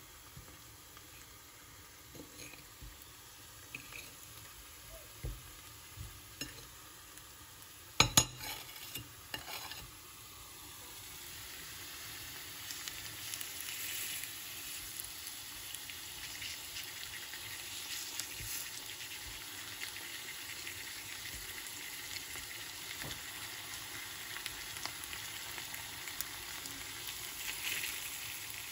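Brown-sugar-coated banana halves sizzling in hot oil in a frying pan. The sizzle builds up about ten seconds in and then holds steady. Before it there are light clinks of a metal fork against a plate, with one sharp clink about eight seconds in.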